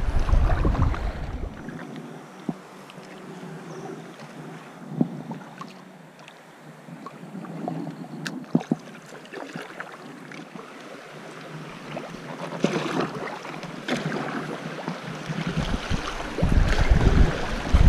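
Paddle strokes and water splashing and rushing around an inflatable kayak running downstream through riffles, with wind buffeting the microphone near the start and again near the end. The quieter middle holds a few light clicks and knocks.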